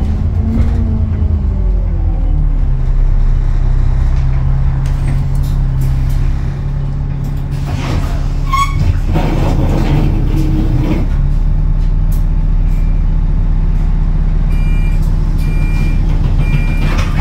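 Bus diesel engine heard from inside the saloon, its note dropping over the first two seconds and then idling steadily. A burst of hiss comes about nine seconds in, and near the end a run of short, high beeps sounds.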